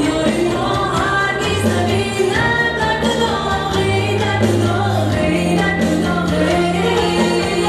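A woman singing a Tajik pop song into a microphone over instrumental backing with long held bass notes.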